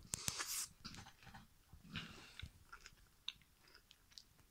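A person chewing banana with the peel on, close to the microphone: irregular wet mouth clicks and smacks, with a short louder rush of noise at the start.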